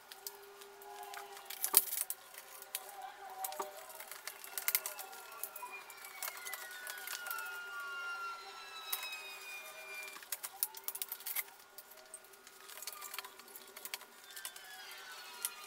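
Hand tools clicking and knocking against metal and plastic while headlamp mounting bolts are worked loose, with the sharpest knock about two seconds in. A few thin squeaks slide up and down in pitch midway, over a steady low hum.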